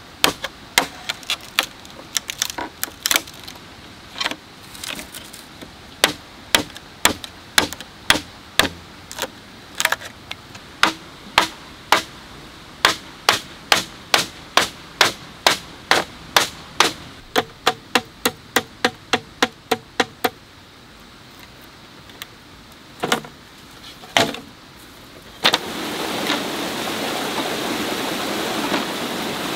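Machete chopping into a green bamboo pole: a run of sharp strikes about two a second, quickening before they stop, then two more blows. About 25 seconds in, a mountain stream rushing over rocks takes over.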